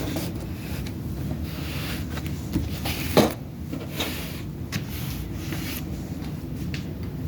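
Handling noises from unboxing a laptop: scattered rustles and light clicks, with one louder knock about three seconds in, over a steady low hum.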